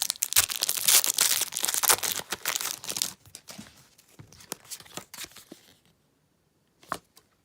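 Foil Pokémon booster pack being torn open and crinkled for about three seconds, then a few quieter crinkles as it is handled.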